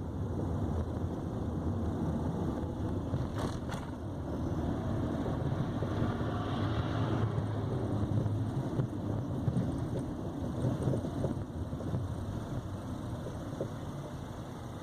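2015 Nissan Sentra on the move, with a steady low rumble of road and tyre noise and a pair of short sharp knocks about three and a half seconds in. The knocks fit the metallic knocking from the front right suspension that the owner has heard since the car was new and that dealers have not cured.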